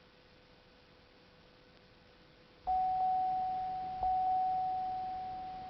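2003 Oldsmobile Aurora's warning chime: one bell-like tone sounding four times, in two quick pairs about a second apart, each stroke ringing on and slowly fading. No cranking or engine is heard.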